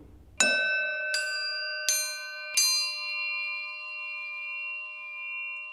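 Four bell-like chime notes at different pitches, struck in even succession about three-quarters of a second apart, each left ringing so that they sustain together and slowly fade.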